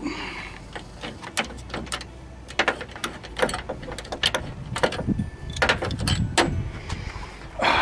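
Ratchet wrench and 10 mm socket clicking and clinking in irregular short metal clicks, about two or three a second, as a radiator bracket bolt is worked loose and handled.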